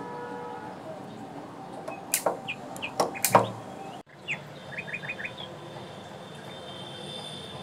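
A few sharp clicks and knocks of a metal kadai on a gas hob's pan support as the burner is lit under it. Then, a second or so later, a quick run of short bird chirps.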